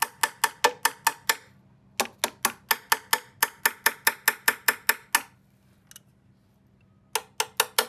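Quick taps on the cast aluminium frame of an LD Systems MAUI i1 column speaker, about five a second, each with a short metallic ring. They come in three runs, with pauses about one and a half seconds in and near six seconds in. The ring is the sound of a solid one-piece cast aluminium frame.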